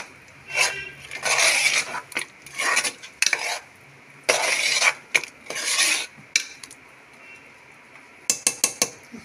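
Metal spoon stirring thick curry in an aluminium pressure cooker, scraping the pot in about six short strokes, then a quick run of clinks against the pot near the end.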